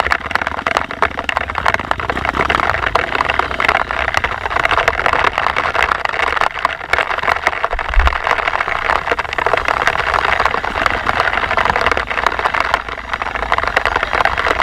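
Off-road motorcycle running on a trail, its engine mixed with heavy wind buffeting on the microphone, and a single thump about eight seconds in.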